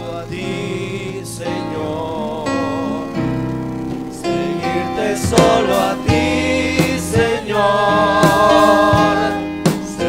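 Live gospel worship music: electronic keyboard and electric bass playing a chorus, with singing voices. Sharp percussive beats come in about five seconds in, and the music grows louder.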